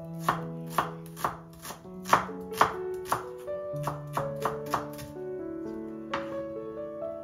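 Kitchen knife slicing onions on a wooden cutting board, the blade knocking on the board about twice a second, with a short pause about five seconds in. Background music with held notes plays underneath.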